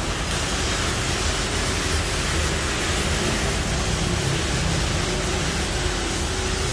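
CNC laser cutting machine cutting 2 mm steel sheet: a steady hiss of the cutting jet and machine noise, with a low hum underneath.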